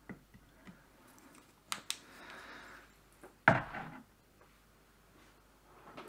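A few light clicks and a soft rustle of handling, then one solid knock about three and a half seconds in, as a hand-held work torch is put down on the workbench.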